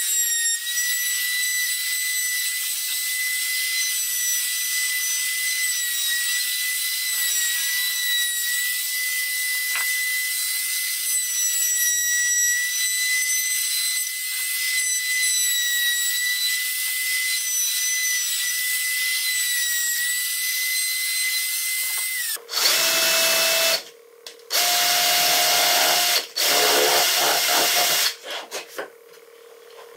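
Compact trim router routing the edges of a fir shelf, a steady high-pitched whine. About three-quarters of the way in it stops abruptly, and a cordless drill runs in several short bursts into a small wood block.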